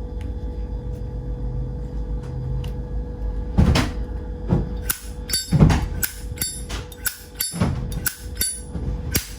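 Brass Zippo lighter being handled: a run of sharp metal clicks and clacks, sparse at first and then coming quickly about four seconds in.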